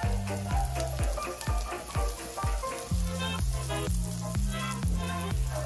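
Butter, chopped garlic and chilies sizzling in a frying pan as they are stirred, under background music with a steady beat of about two a second and a moving bass line.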